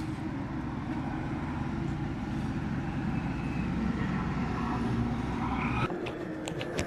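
Road traffic: a steady rumble of vehicle engines that swells slightly and then cuts off abruptly about six seconds in.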